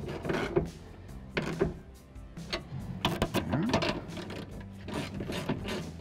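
Socket ratchet clicking in short runs as bolts are tightened down into a truck door's latch mounting.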